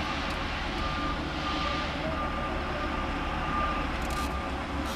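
Steady rumbling mechanical noise, like a vehicle running, with a faint high beep repeating about every two-thirds of a second.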